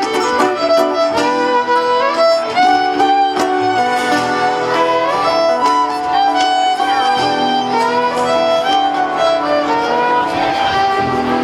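A live folk string band playing an instrumental break: a fiddle leads with held and sliding notes over plucked strings.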